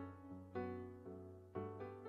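Soft background music on piano: slow chords, each struck and left to fade, with a new one about half a second in and another near the end.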